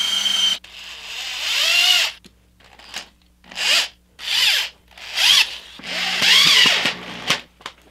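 Power drill running in about six short bursts, its pitch rising and falling with the trigger, as it drills and drives 2-inch screws into pine blocks.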